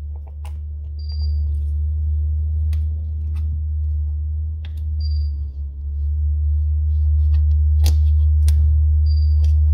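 A steady low hum throughout, with scattered small clicks and ticks from a plastic opening pick working under the edge of a phone's glued back glass, two of them sharper near the end. A short high beep sounds about every four seconds.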